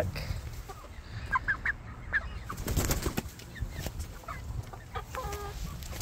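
A flock of young chickens clucking and peeping in short, scattered calls, with one longer, clearer call about five seconds in.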